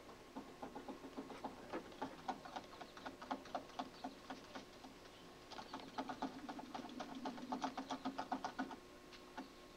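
A small dog digging and scratching at the ground under a board by a drain pipe, after a chipmunk hiding there: a fast patter of scratches in two long runs, stopping shortly before the end.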